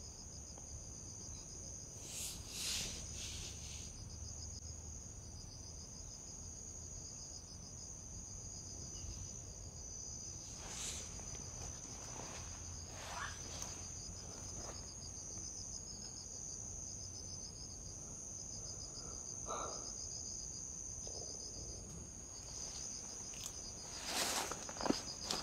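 Insects trilling steadily at a high pitch with an even pulsing beat, with a few short rustles and knocks breaking in, the loudest near the end.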